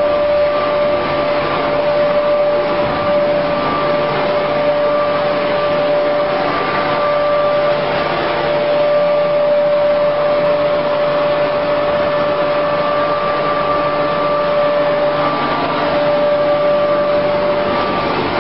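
Sawdust rotary dryer plant running: electric drive motors, fan and turning drum make a steady mechanical noise with a constant whine over it.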